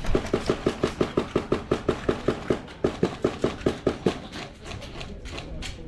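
Airsoft gun fired in a fast string of sharp shots, about five a second. There is a brief break a little under three seconds in, and the shots fall away after about four seconds.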